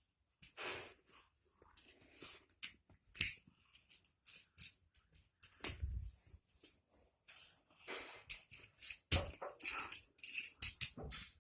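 Plastic magnetic building blocks clicking and clattering as they are handled, snapped together and rummaged through: many short, irregular clacks, coming thicker near the end.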